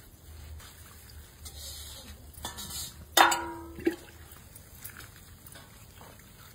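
Hand stirring and turning damp puffed rice in a plastic tub, a soft rustling of the grains. About three seconds in, a steel pot is knocked and rings briefly, with a second smaller knock just after.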